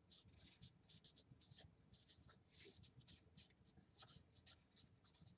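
Marker pen writing on a whiteboard: a quick run of faint, short strokes as a word is written out letter by letter.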